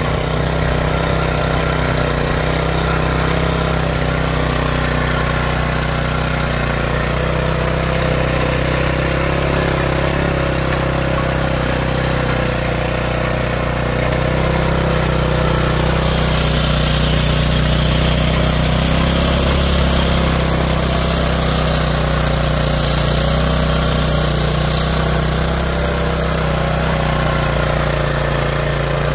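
Pubert Nano mini tiller's small petrol engine running steadily as its tines work dry soil, getting slightly louder around the middle.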